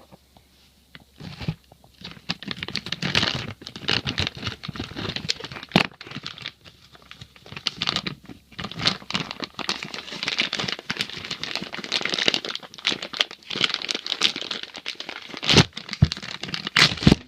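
Plastic packaging bag crinkling and rustling as it is handled and pulled open, with a few sharp knocks near the end.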